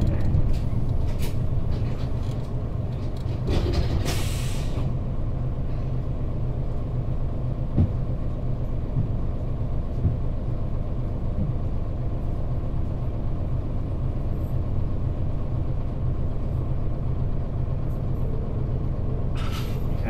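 Mitsubishi Fuso KL-MP35JM bus's 6M70 naturally aspirated six-cylinder diesel, settling from running into a steady idle as the bus stands at a stop. There is a short hiss of air from the air brakes about four seconds in, and again near the end.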